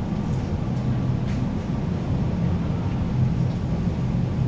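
Electric mobility scooter driving forward, its motor and drive running as a steady low hum.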